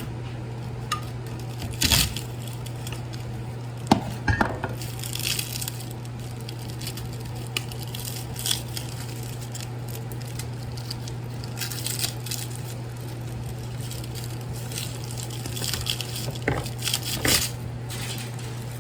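Copper winding wire being worked out of a small transformer's steel core: scattered sharp metal knocks and clinks, loudest about 2 and 4 seconds in and again near the end, with scraping and rustling between them. A steady low hum runs underneath.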